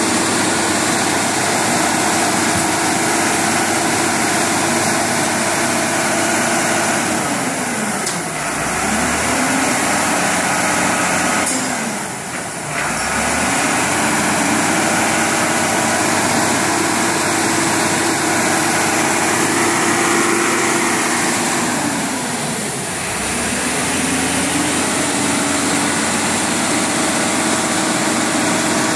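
A motor vehicle's engine running steadily. Three times its pitch drops and climbs back up within a second or two, as when the driver eases off the throttle and then opens it again.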